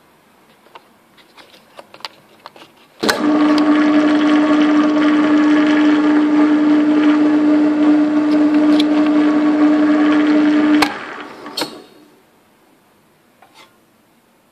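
Pillar drill switched on with a click, its motor running at speed with a steady hum and the 5 mm bit spinning free above the steel panel. After about eight seconds it is switched off with a click and winds down.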